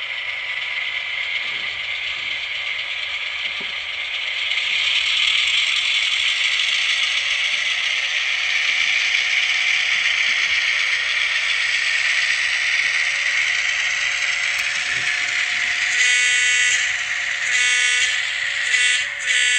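Onboard sound of an N-scale EMD SD9 model diesel locomotive, played through its tiny built-in speaker: the diesel prime mover firing up and running, growing louder about four seconds in. Near the end the model's horn blows four times, long, long, short, long, the grade-crossing signal.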